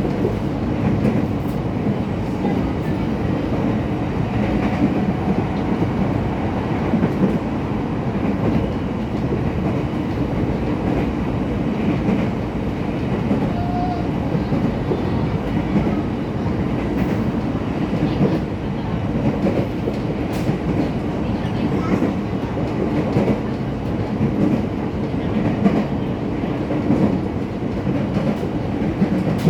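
Steady running noise inside a former Tokyo Metro 6000 series electric train car, with a dense rumble of wheels on rails heard through the car body as the train runs between stations.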